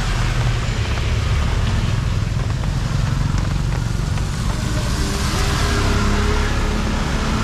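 Road traffic: motor vehicle engines running with a steady low rumble, and one engine's hum standing out from about five seconds in.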